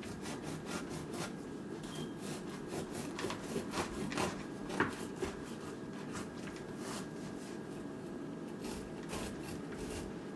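A jackfruit being worked by hand and knife: irregular scraping and rubbing strokes, busiest in the middle and again near the end, over a steady low hum.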